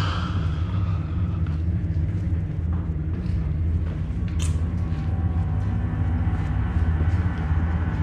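A steady low droning rumble throughout, with a brief high-pitched sound about four and a half seconds in.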